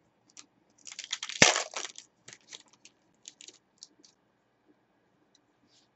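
A stack of trading cards being handled and flicked through: a quick run of card rustles and flicks about a second in, with one sharp snap, then a few scattered light clicks.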